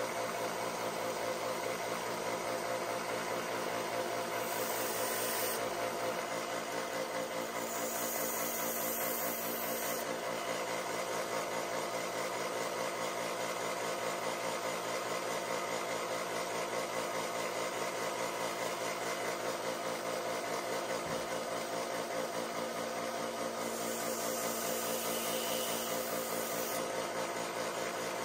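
Bench belt sander running steadily: a motor hum with many even tones that does not change pitch, with three short spells of added hiss.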